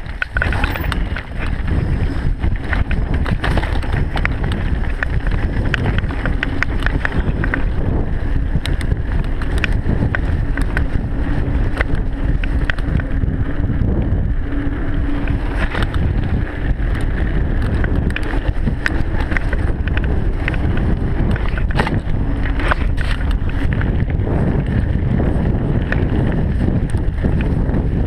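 Mountain bike riding fast downhill over dirt and gravel: steady wind rush on the camera microphone with tyre rumble and frequent rattles and knocks from the bike over bumps.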